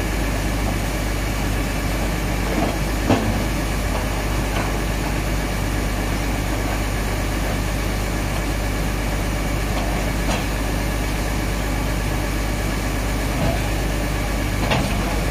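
Excavator engines running steadily under load, with a few short sharp knocks, the loudest about three seconds in.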